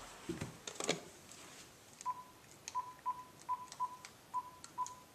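Keypad of a Uniden cordless phone handset being dialled: the buttons are pressed one after another, each press giving a click and a short single-pitched beep, about eight beeps in the last three seconds. A few handling knocks come in the first second as the handset is picked up.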